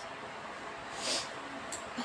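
Quiet room tone with a brief swish of fabric about a second in, as a dress on a hanger is handled.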